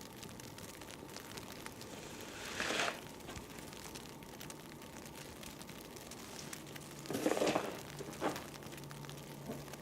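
Snow shovel scraping and scooping heavy wet snow: one scrape about a quarter of the way in and two close together near the end, over faint crackling ticks.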